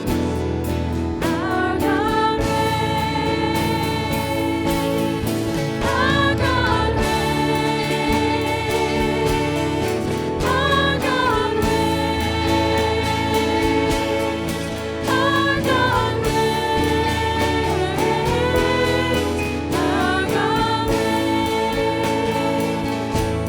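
Church music with singing, a choir or vocal group over instrumental accompaniment, with long held sung phrases.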